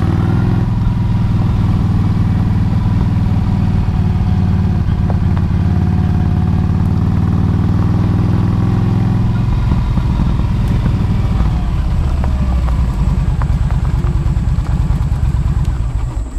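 Small motorcycle's engine running steadily while it is ridden, its note changing about ten seconds in. Near the end the engine is switched off and the sound dies away.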